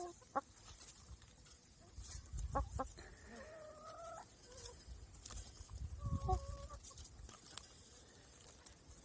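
Hens clucking: a few separate calls with pauses between, one of them drawn out for about a second starting around three seconds in.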